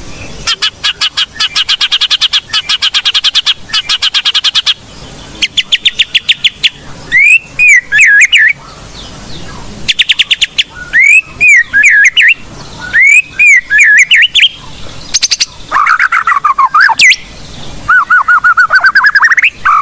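White-rumped shama (murai batu) singing loudly: fast trills of rapidly repeated notes alternating with looping, swooping whistled phrases, with a rising trill near the end.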